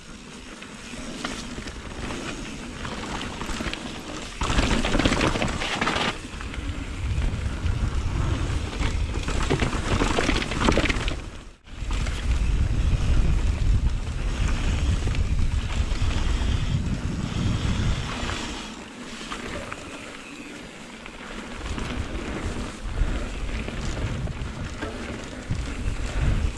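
Wind buffeting an action camera's microphone with a low rumble from a mountain bike riding down a trail. The rumble swells and eases and drops out for a moment about halfway through.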